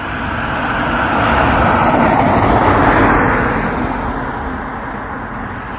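A car driving past: its road noise swells to a peak about three seconds in, then fades away.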